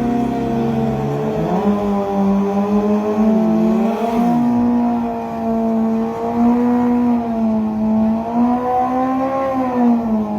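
Race car engines running hard on a speedway, their pitch rising and easing with the throttle. About four seconds in, another car passes with a quickly falling pitch.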